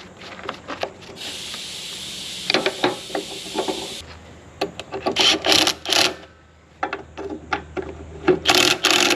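Hand tools working on metal parts of a combine header's cutterbar: clinks, knocks and scraping, with two short bursts of rapid clicking and rattling in the second half. A steady hiss runs for about three seconds near the start.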